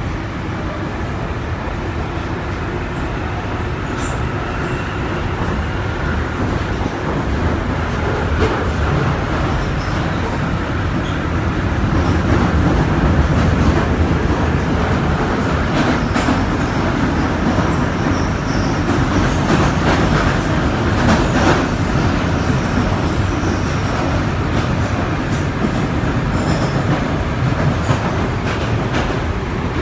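Ride inside a London Underground 1995 Stock Northern Line train running through a tunnel: a steady rumble of wheels and running gear with scattered sharp clicks from the track, growing somewhat louder partway through. A faint rising whine is heard in the first few seconds.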